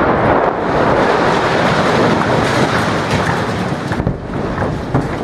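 Heavy rumble of a large explosion against a tall building, the blast noise rolling on and easing slowly, with a few sharp cracks near the end.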